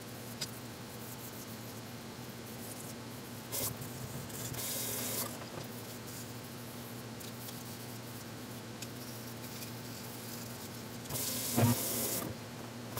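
Brief hissing rubs from cleaning plastic cordless-phone parts: a short one about three and a half seconds in, a longer one just after, and another of about a second near the end, over a steady low hum.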